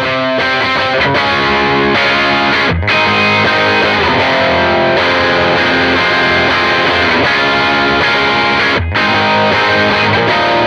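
Soloed electric rhythm guitar track: a Gil Yaron Les Paul replica on its bridge humbucker through a cranked Jim Kelley Reverb amp for natural amp overdrive, heard through a 2x12 cabinet with Celestion A Type speakers. The chords break off for an instant twice, about three seconds in and again near nine seconds in.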